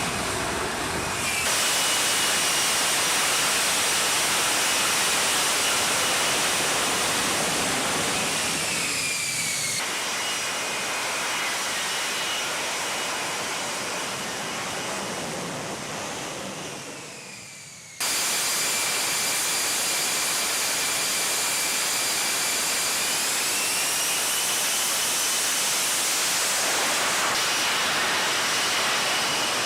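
F-35 fighter's jet engine running, a loud rushing roar with a high turbine whine that slides up and down in pitch. It comes in several separate clips with abrupt changes between them, the sound fading down shortly before one cut.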